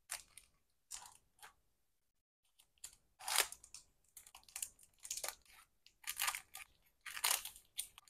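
Clear plastic sleeves on paintbrushes crinkling and rustling as the brushes are pulled from a leather pouch and handled, in short irregular bursts.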